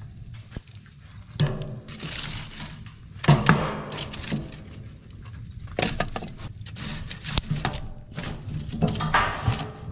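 Split firewood being loaded into the open firebox of a wood stove: several irregular knocks and clatters of logs against each other and the stove, over the crackle of the burning fire.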